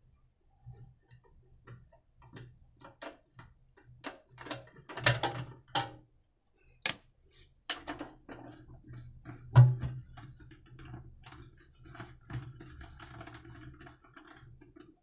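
Irregular metallic clicks and taps of an L-shaped socket wrench working the fuel-tank bolts loose on a small petrol generator, with a few sharper knocks about five to ten seconds in.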